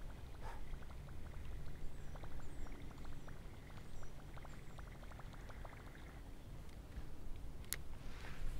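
Spinning reel being cranked on a topwater retrieve: a run of light, quick ticks through the first half, over the low steady wash of stream water. One sharp click near the end.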